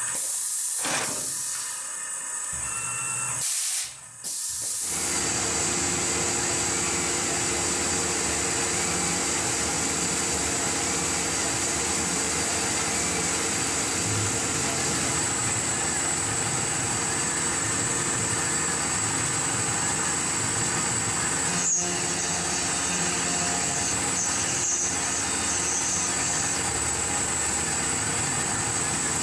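Tormach PCNC 1100 CNC mill's spindle running an end mill through an aluminum plate under a spray of coolant: a steady hiss and hum of cutting and spraying, with a brief break about four seconds in.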